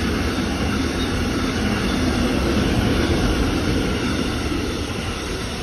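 A train running past on the line, a steady rumble and rush of noise that swells toward the middle and begins to fade near the end as it moves away.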